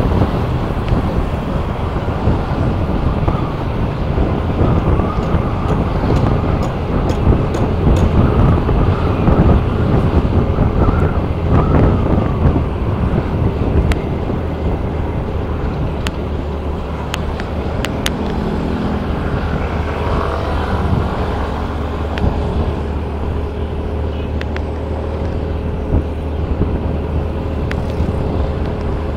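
A motor vehicle's engine running steadily while on the move, with road noise and wind on the microphone.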